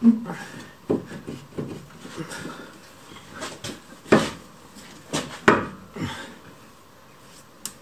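Irregular metal clunks and knocks of a Powerflex lower control arm being wrestled into its mounting, an arm that won't go all the way in. There are about ten knocks, the loudest right at the start and about four and five and a half seconds in.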